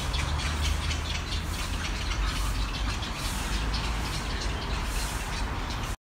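Steady low rumble of street traffic, with many short, high bird chirps over it.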